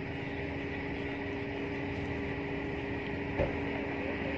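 A motor running steadily, a low even drone over a constant outdoor hiss, with one sharp click about three and a half seconds in.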